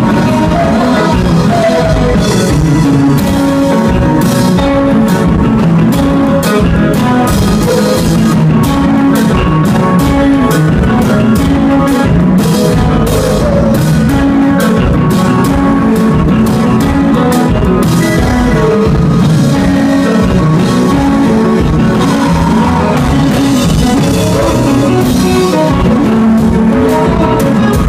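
Konpa band playing live and loud: electric guitar over a drum kit with a steady beat.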